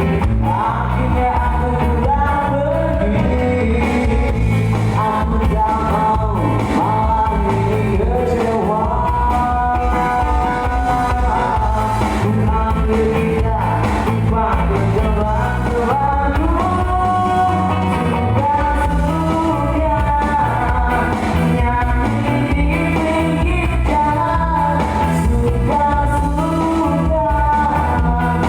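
A band playing rock-pop music with singing over a steady beat.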